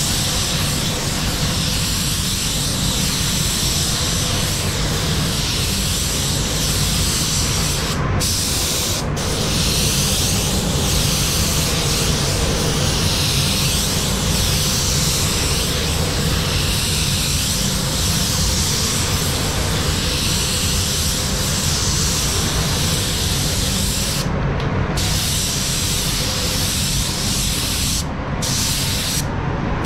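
Paint spray gun hissing as paint is sprayed, the hiss cutting out briefly a few times between passes, over a steady low rumble.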